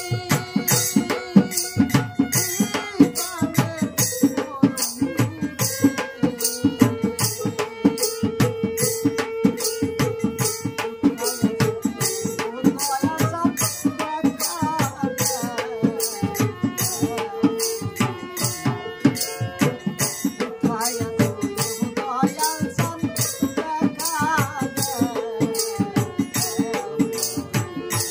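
Bengali Baul folk music: a harmonium plays a sustained melody over a steady, fast beat on a two-headed barrel drum, with hand cymbals jingling along.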